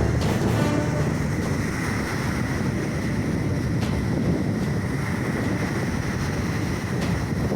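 Sea waves washing in, heavily overlaid by wind buffeting the microphone as a steady low rumble.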